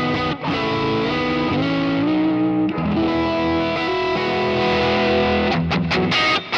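Electric guitar played through a Kemper Profiler on a Fender Deluxe Reverb amp profile, with a slightly driven tone: held chords and single notes changing pitch in steps, with a few slides. Its tone controls (bass, treble and cut) are pushed to an extreme setting, giving a sound the players call wild.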